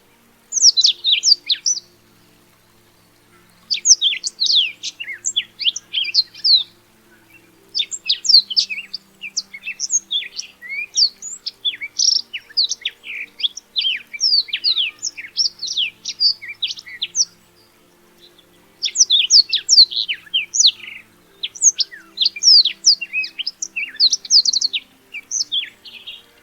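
Black-throated canary (Crithagra atrogularis) singing: rapid runs of high, quick down-slurred notes in four bouts, a short one at the start and then three longer ones with brief pauses between them.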